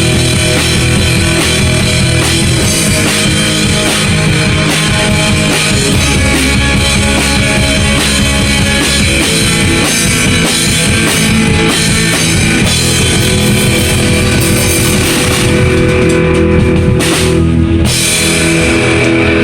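Rock band playing live: a drum kit with cymbals driving the beat under electric guitar, loud and continuous.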